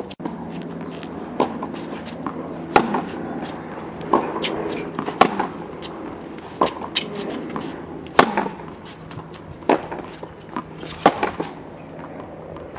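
Tennis rally on a hard court: a string of sharp pops from racket strings hitting the ball and the ball bouncing, roughly one every second or so.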